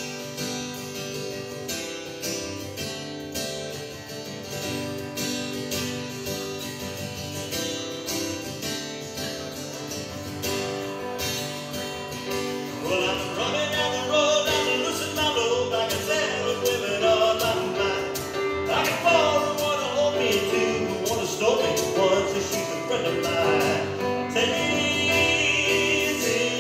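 Live acoustic guitar strumming and electric keyboard playing, joined by a man's singing voice about halfway through.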